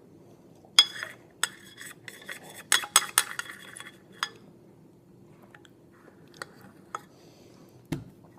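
Spoon clinking and scraping against a bowl of ice cream: a quick run of ringing clinks over the first few seconds, then a few scattered light taps.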